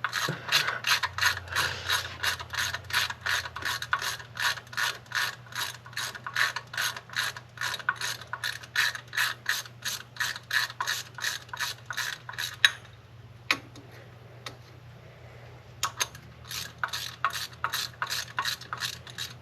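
Ratchet wrench clicking in quick, even strokes, about three to four clicks a second, as a half-inch thermostat housing bolt is backed out. The clicking stops for a few seconds about two-thirds of the way through, with a few single clicks, then starts again.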